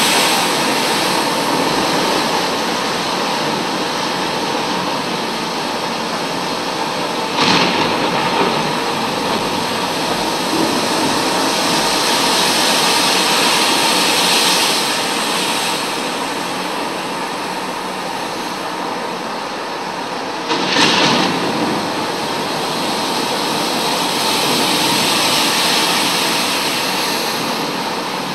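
Stormy-sea sound effect: a steady rush of wind and waves that slowly swells and fades, broken by two sudden loud crashes, one about seven seconds in and one about twenty-one seconds in.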